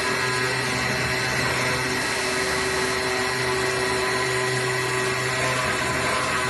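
AOKE DCZ70 CNC flatbed cutting machine running as its cutting head travels across the board: a steady mechanical whine, with a low hum under it that drops out about half a second in, returns around three seconds in and drops out again near the end.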